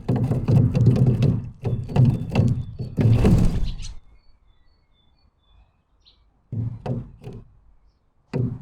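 Quick close knocks and thumps on a bird feeder, with short pauses between flurries. There are a few faint high chirps in a lull in the middle.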